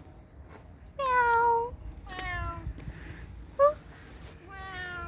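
Domestic cat meowing four times, each call slightly falling in pitch; the loudest and longest comes about a second in, and a short sharp one comes near the middle.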